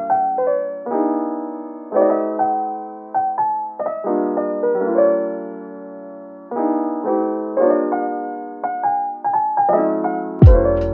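Background piano music: chords struck about once a second, each dying away, with short melody notes between them. Near the end a beat with a deep kick drum comes in.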